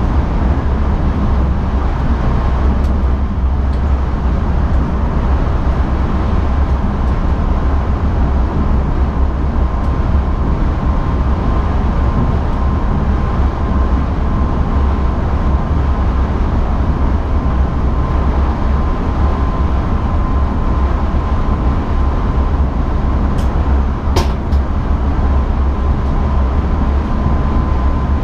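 Steady running noise in the driver's cab of an NS ICM (Koploper) intercity train: a deep, even rumble with a thin steady high tone over it, and a brief click about 24 seconds in.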